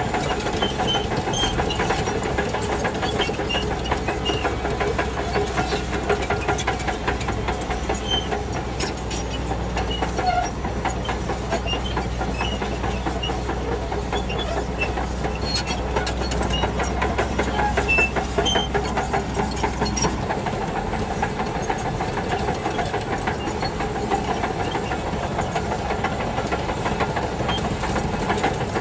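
Shantui DH17C2 crawler bulldozer working, its engine running steadily under a constant metallic clatter. A low hum underneath stops about two-thirds of the way through.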